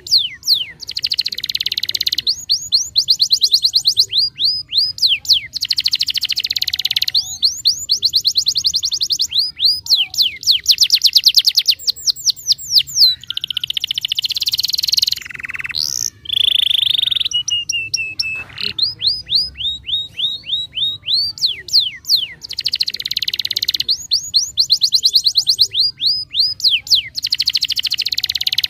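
Domestic canary in full song: a long, loud run of fast trills, each phrase a rapid series of repeated high notes lasting a second or two. It switches from phrase to phrase with brief breaks, and a louder held, sliding note comes about halfway through.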